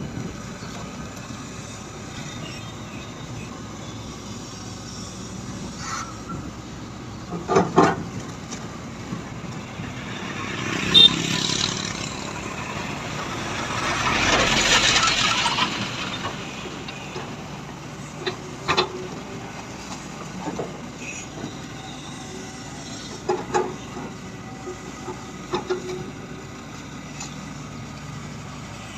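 Shantui excavator working: a steady engine drone with a swell for a few seconds about halfway through, and several sharp knocks scattered through it.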